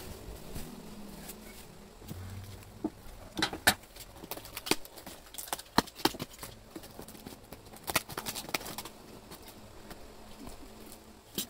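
Plastic stretch wrap and packing tape on a cardboard box being cut and peeled off by hand: irregular crackles and sharp clicks, coming in short clusters.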